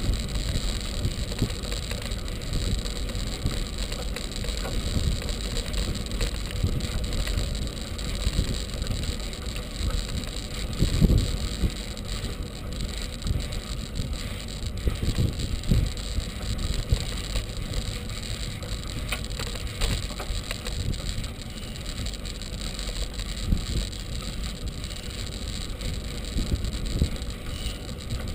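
Bicycle ride heard through a bike-mounted camera: steady wind buffeting and low road rumble, with occasional bumps and rattles from the bike and carrier over the path, a louder one about eleven seconds in.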